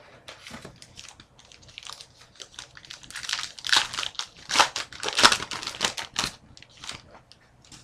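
A foil trading-card pack wrapper crinkling and tearing as it is opened by hand, the crackling loudest in the middle few seconds.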